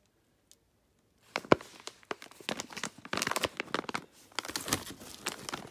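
Plastic food packaging crinkling and rustling as it is handled in a cardboard shipping box. It starts about a second in with a sharp crackle, the loudest moment, and carries on as an uneven run of crackles.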